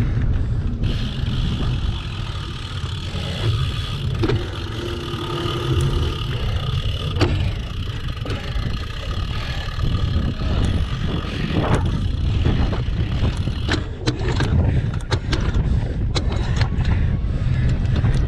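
Wind buffeting an action camera's microphone while a single-speed cyclocross bike is ridden, with sharp knocks and rattles from the bike, more frequent in the second half.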